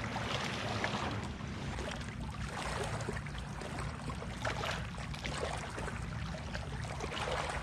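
A steady low motor hum with faint water sounds and a few small scattered ticks.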